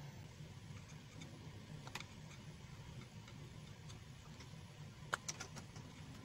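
Faint light clicks and taps of desoldering work on a router circuit board, over a low steady hum, with a short cluster of sharper clicks about five seconds in.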